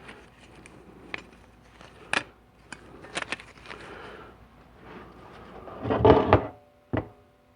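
Transmission clutch plates and steels being handled on a workbench: scattered light clicks and clinks, then a louder clatter about six seconds in that leaves a brief metallic ring, and one more knock just after.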